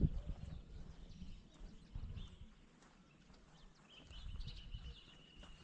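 Outdoor ambience of birds chirping, with one long, thin, high call starting about four seconds in, over an uneven low rumble.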